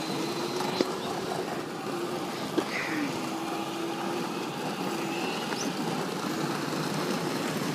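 Electric motors of battery-powered ride-on toy cars whirring, a low hum that comes and goes, with two short sharp clicks in the first few seconds.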